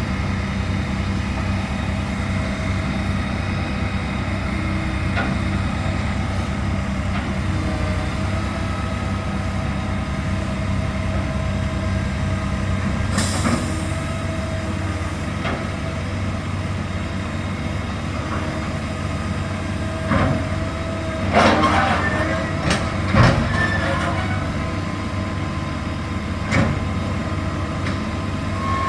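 A heavy engine running steadily at a low, even pitch. A few sharp knocks and clanks sound over it: one about halfway with a brief hiss, a cluster in the last third, and one more near the end.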